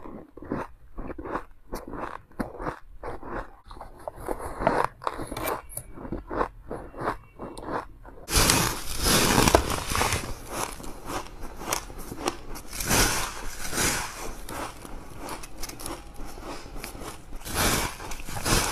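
Crunching of fluffy white shaved ice bitten and chewed, many quick crunches in a row. About eight seconds in the crunching turns brighter and fuller as teeth bite into a frosted block of ice.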